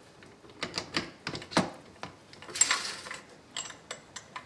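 Steel gears of a Hewland Mk 8 gearbox's gear train clinking and clicking as they are slid down onto the shafts in the casing by gloved hands. A string of sharp metal clicks, the loudest about one and a half seconds in, then a short rattle just past halfway and a few lighter ticks near the end.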